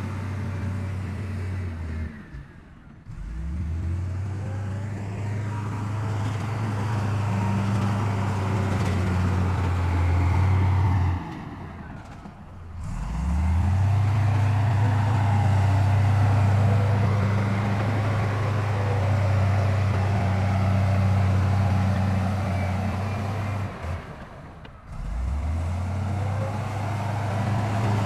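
Heavy diesel engine of an earthmoving machine running steadily, dropping off three times and revving back up after each drop.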